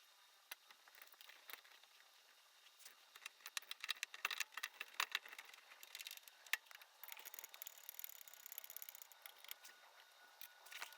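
Faint clicks, taps and light scrapes of a hand tool working the screws of a car's plastic undercarriage cover, with a quick run of rapid clicking about seven seconds in.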